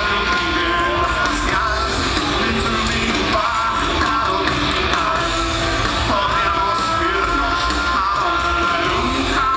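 Live rock band playing through the PA with a lead singer holding long sung notes.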